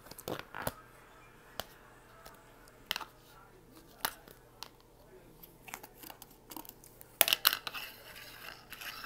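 Hands handling and tapping a red plastic cup close to the microphone: scattered light clicks and taps, with a louder burst of scratching and rustling about seven seconds in.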